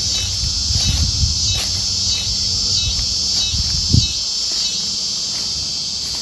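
A chorus of crickets and other night insects, a loud, steady, high pulsing trill. Underneath is a low rumble that ends with a thump about four seconds in.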